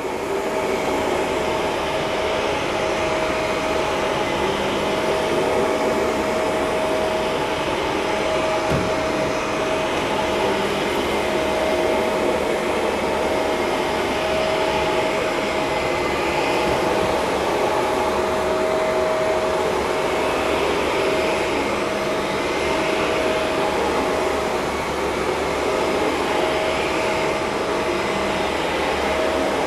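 Shark Professional vacuum cleaner running steadily, its motor whine held at one pitch over the rush of air.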